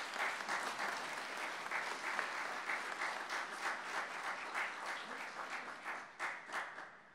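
Audience applauding, the clapping thinning to a few last claps near the end.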